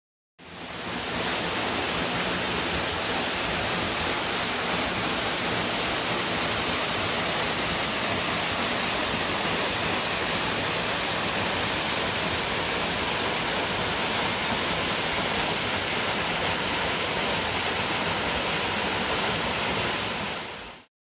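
Steady rushing of a 15 m plunge waterfall pouring into its pool. It fades in just after the start and fades out near the end.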